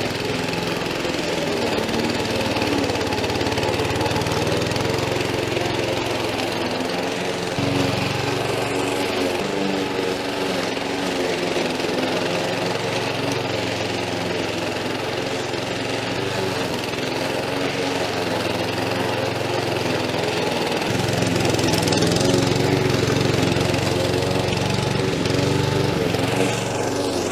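Stihl RM 4 RTP petrol mulching mower running steadily while cutting long, rough grass about 10 to 12 inches tall. The engine note shifts with the load about seven seconds in and again around twenty seconds in.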